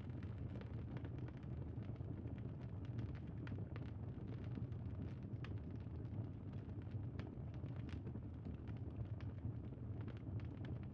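Crackling bonfire: a steady low rush of burning with frequent scattered sharp pops and snaps.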